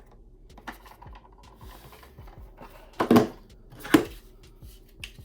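Handling of a Glock 19 pistol and its 9mm cartridges: faint small clicks and rattles, then two sharp metallic clacks a little under a second apart, about three and four seconds in.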